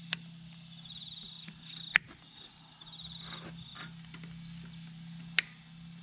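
Side cutters snipping the tails off nylon cable ties fastened around hydraulic hoses: three sharp snaps, the second about two seconds after the first and the third near the end.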